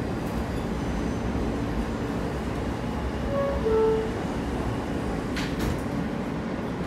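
Steady low rumble of an R160A subway car standing in the station with its doors open. About three seconds in, a two-tone door chime sounds, falling in pitch, and a sharp knock follows about five and a half seconds in.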